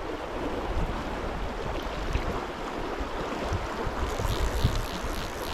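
Stream water rushing steadily around a wading angler, with wind buffeting the microphone. From about four seconds in, a faint rapid ticking runs over it.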